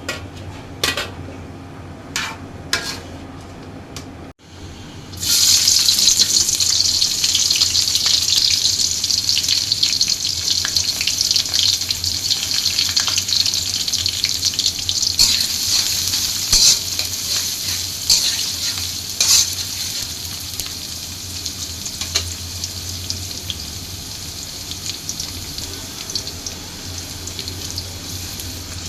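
A few knocks on cookware, then about five seconds in food goes into hot oil and sizzles loudly, with the occasional clack of a spoon stirring in the pan. The sizzle eases a little in the second half.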